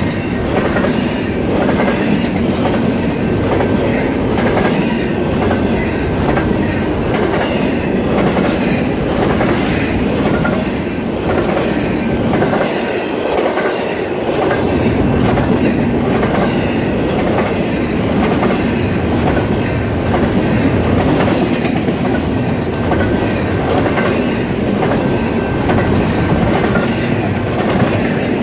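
Intermodal freight train of double-stack container well cars and trailer flatcars rolling steadily past: a continuous rumble of steel wheels on rail, clicking over rail joints.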